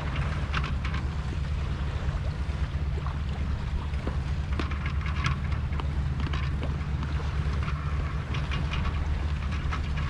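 Wind buffeting the microphone on the deck of a sailing yacht under way in a fresh breeze, a steady low rumble, with water rushing and splashing along the hull in short bursts every second or so.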